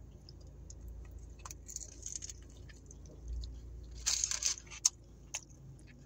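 Chewing a mouthful of toasted bagel sandwich, with scattered small crunches and clicks. About four seconds in comes a louder burst of paper wrapper crinkling as the sandwich is set back into its wrapper.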